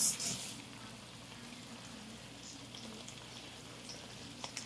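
Frying eggs and a pan of scallops with bacon sizzling steadily. A running tap cuts off about half a second in, and a few light clicks come near the end.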